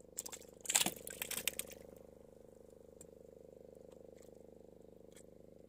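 A boat engine running steadily with a fast, even throb. About a second in, a short noisy burst of clatter rises over it and dies away.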